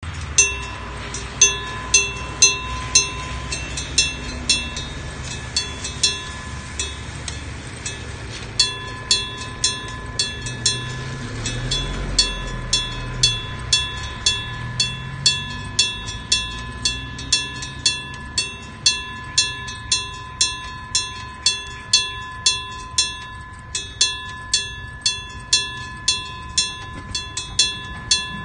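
Electric-bell level crossing alarm (dentsu-shiki type) ringing: a bell struck by an electric hammer, each stroke leaving a ringing tone. The strokes come unevenly, thinning out for a few seconds after the start, then about two a second. Midway a train rumbles past the crossing, swelling and fading over several seconds.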